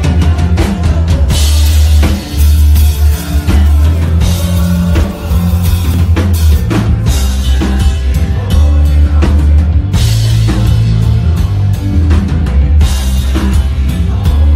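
Loud live rock band playing, with the drum kit's kick and snare driving a steady beat over heavy bass.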